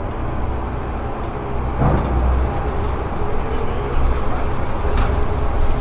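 Ride inside a King County Metro city bus: a steady low rumble of engine and road, with a single knock about two seconds in and a sharper click about five seconds in.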